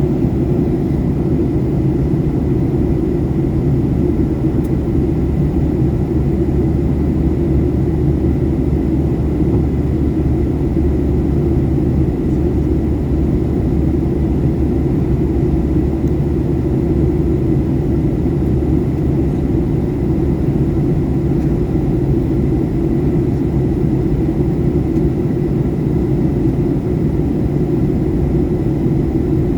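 Steady drone of an airplane in flight, low and unchanging, with a faint steady high tone above it.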